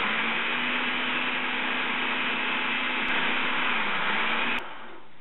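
Food processor motor running, puréeing thick roasted sweet potato soup as broth is poured in: a loud whir with a motor whine that rises as it spins up, holds steady, winds down near the end and cuts off suddenly about four and a half seconds in.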